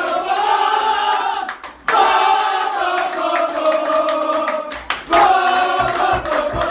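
A group of men singing a celebration chant together in long drawn-out phrases, breaking briefly twice, with hand clapping along.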